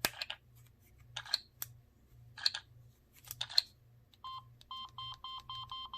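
Samsung SGH-T309 flip phone playing flip tone number 2: a rapid, even run of short electronic beeps, about six a second, starting about four seconds in. Before it come a few sharp, separate clicks.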